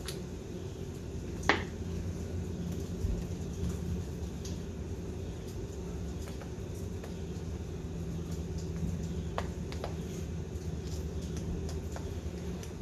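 Light clicks and taps of small parts as the carburetor's top cap is fitted and its screws are started, one sharper click about a second and a half in, over a steady low hum.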